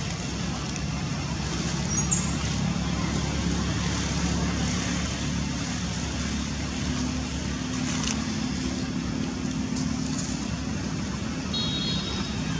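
Motor traffic: a vehicle engine running with a steady low hum. A brief rising high squeak comes about two seconds in.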